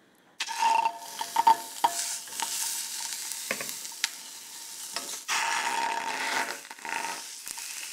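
Skin-on chicken pieces sizzling loudly as they are laid skin-side down in a hot, dry stainless-steel pan with no oil added. The sizzle starts suddenly about half a second in, with a few sharp clicks as pieces go in, and surges again about five seconds in as another piece is added.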